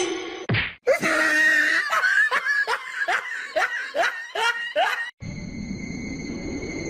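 Laughter: a rapid run of short pulses, about three a second, each falling in pitch, for about four seconds. Just after five seconds it cuts off, and a steady high-pitched tone over a hiss begins.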